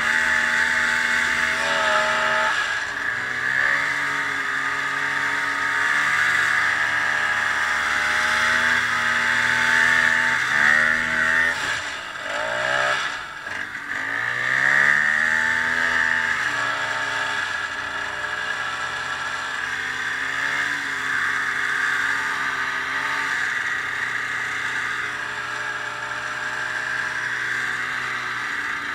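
Ski-Doo snowmobile engine running under way, its pitch rising and falling with the throttle; about twelve seconds in it eases off and drops in pitch, then revs back up and runs on.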